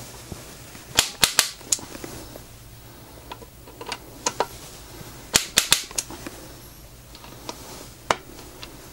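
Torque wrench on the scope-rail screws giving sharp clicks in small groups of two to four, each group a screw reaching its set torque of 20 inch-pounds.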